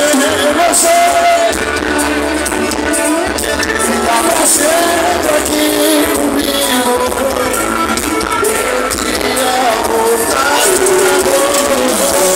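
Live forró band playing loudly with a man singing the melody, heard from among the crowd.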